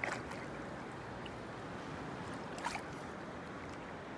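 Shallow sea water lapping gently around a floating paddleboard, with two brief small splashes, one at the start and one about two and a half seconds in.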